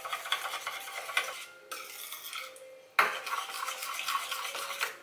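Metal spoon stirring a thick yogurt dressing in a stainless steel bowl, with rapid clinks of spoon against bowl. The stirring lulls briefly in the middle and starts again abruptly about three seconds in.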